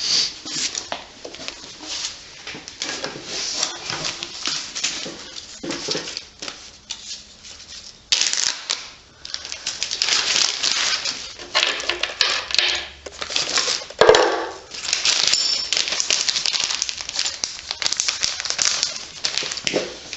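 Metal tools and engine parts clinking and rattling as an engine is taken apart by hand: dense runs of rapid clicks and clatter with short pauses, and a sharper knock about two-thirds of the way through.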